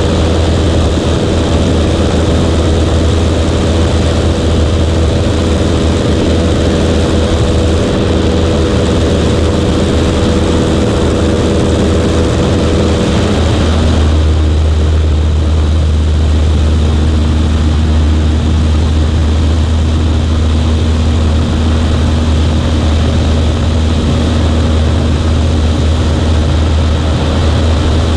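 A Cessna 140A's engine and propeller droning steadily in flight. The tone changes about halfway through, as the higher overtones drop away and the low hum strengthens.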